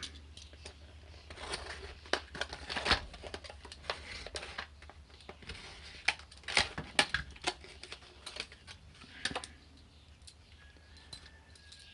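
Irregular clicks, rattles and crinkling as a padlock and its keys are handled and freed from their plastic packaging.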